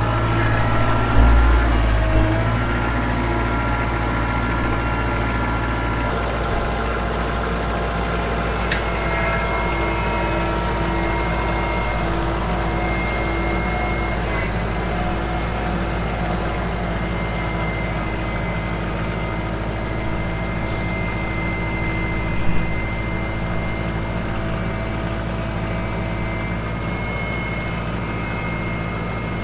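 Kubota compact tractor's diesel engine running steadily, with a change in its note about six seconds in and a few short knocks.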